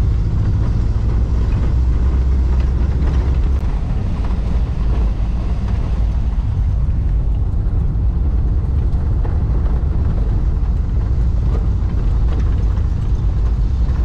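Volkswagen Kombi van driving over a stone-paved street: a steady low rumble of engine and tyres on the rough paving.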